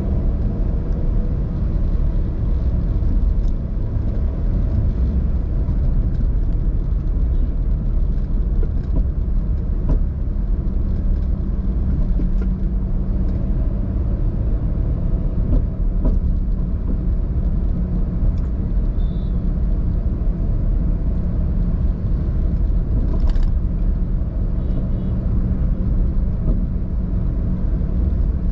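Steady low rumble of a car being driven: engine and tyre noise. There are a few faint ticks, and one short knock late on.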